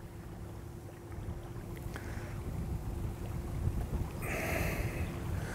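Low rumble of wind on a clip-on microphone over open water, with a brief rustle of handling noise about four seconds in.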